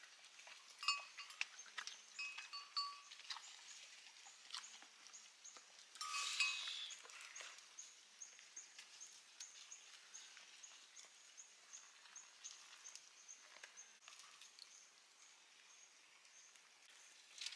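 Sheep and goats bleating: a few short calls in the first three seconds, then a louder one about six seconds in, over a faint, regular high ticking.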